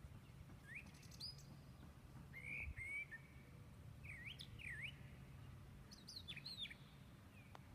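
Songbirds chirping faintly: short rising and dipping whistled calls, scattered about once a second, over a steady low background hum.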